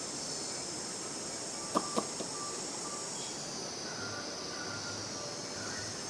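A steady, high-pitched insect chorus, with three sharp taps close together about two seconds in and a few faint short chirps.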